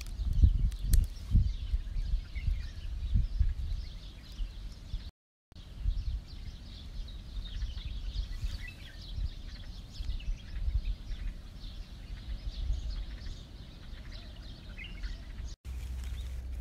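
Outdoor ambience: gusty wind rumbling on the phone's microphone, with small birds chirping faintly in the background. The sound drops out for a moment about five seconds in.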